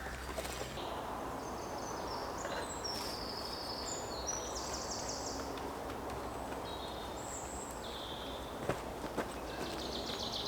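Woodland ambience with several small birds singing short high trills and whistled phrases over a steady background hiss, and a couple of light knocks near the end.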